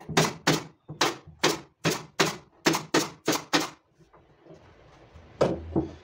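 A hammer striking wood in a quick run of about ten blows, roughly three a second, then a pause and two more blows near the end.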